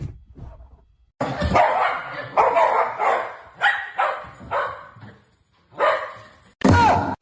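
A dog barking repeatedly, about two barks a second, after a brief quiet start, with a louder burst near the end.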